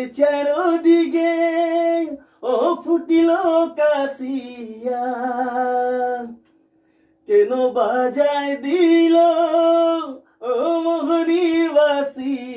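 A man sings a Karam song vocal alone into a studio microphone, in phrases with long held notes and a short break about six seconds in; no accompaniment is heard.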